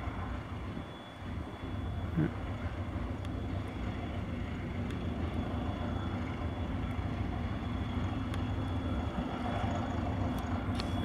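LS800 diesel locomotive engine running with a steady low drone as it approaches at low speed hauling a freight train, with a faint steady high whine above it.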